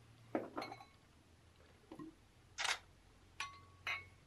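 Several light clinks and taps of a wine thief against a wine glass and barrel while a wine sample is drawn and poured, a couple of them ringing briefly.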